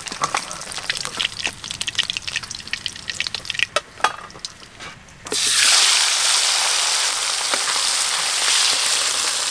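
Bata fish frying in hot oil in an iron kadai. Light crackling and clinks for the first few seconds, then a loud, steady sizzle starts abruptly about five seconds in.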